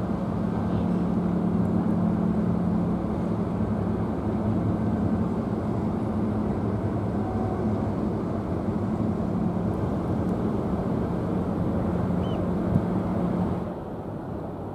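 Steady low drone of a car ferry's engines running, with a held low hum. Near the end it cuts to a quieter sound of wind and water.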